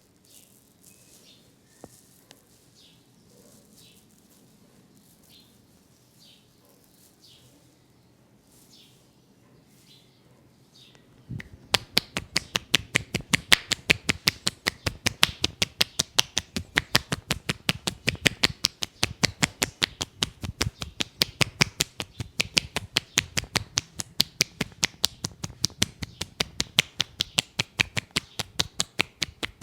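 Hands of an Indian head massage on the head: first faint soft rubbing strokes, then about eleven seconds in a fast, even patter of sharp hand slaps on the head begins, several a second, and keeps going.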